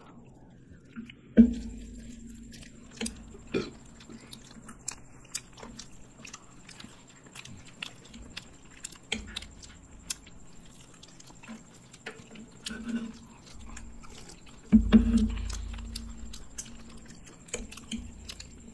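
People eating fried chicken and black bean noodles: chewing, biting and lip-smacking with many small wet clicks. Two louder thumps stand out, about a second and a half in and again near fifteen seconds.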